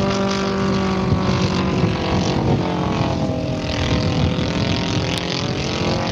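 Engine and propeller of a giant-scale radio-controlled model biplane in flight, a steady buzzing drone. Its pitch dips around the middle and climbs again as the model passes and banks.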